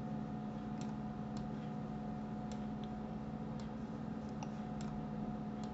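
About eight faint computer mouse clicks, irregularly spaced, over a steady low hum.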